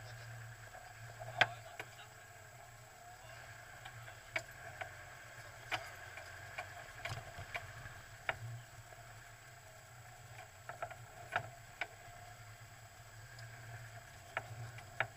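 Off-road 4x4's engine running at low revs with a steady low hum, with a dozen or so irregular sharp clicks and knocks scattered through it.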